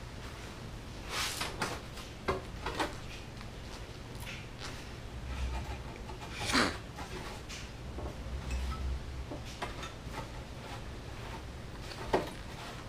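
Scattered brief rustles, scrapes and taps of gloved hands handling a car's fender lip and tyre, over a faint low steady hum.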